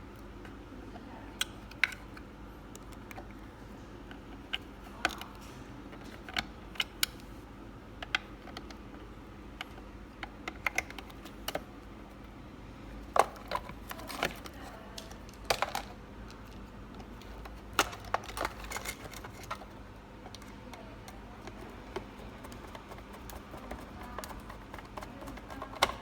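Irregular clicks and light knocks of hard plastic parts being handled while working on a robot vacuum's battery, with a faint steady hum underneath.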